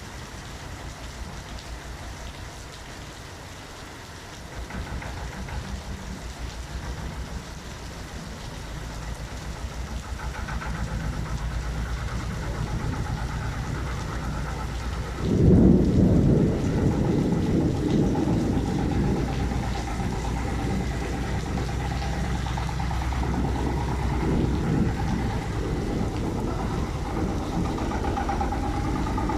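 Rain falling with thunder rumbling. The rumble builds, breaks into a loud thunderclap about halfway through, and keeps rolling after it.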